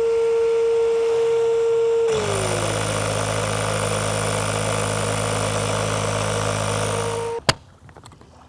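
Electric air pump running while it inflates an inflatable catamaran pontoon. It gives a steady whine, and about two seconds in the pitch drops and the sound turns rougher with a low hum. About seven and a half seconds in it shuts off with a click.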